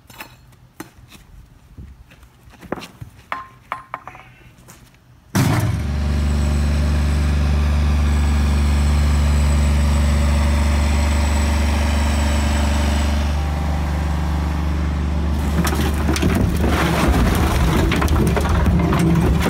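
Scattered light knocks and scrapes of broken asphalt being handled. About five seconds in, a loud engine cuts in abruptly and runs steadily, with clattering and rattling joining it in the last few seconds.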